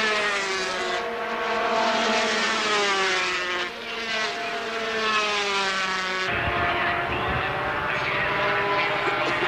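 A pack of 250cc two-stroke Grand Prix racing motorcycles passing at high revs, several engines at once, their pitch falling as they go by and climbing again through the gears. About six seconds in, the sound changes abruptly to a steadier engine drone with a low rumble.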